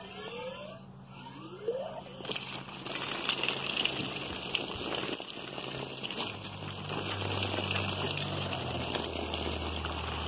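Outdoor spigot turned on with a few short rising squeaks from the valve, then water gushing from it about two seconds in, splashing over a block of wood held under the stream and onto the boards below. A low steady hum joins the running water from about six seconds in.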